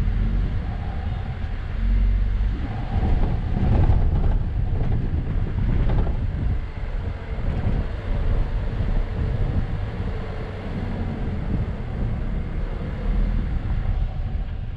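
Mazda CX-9 SUV driving through deep, soft sand: the engine works under load over a heavy low rumble, its pitch rising and falling.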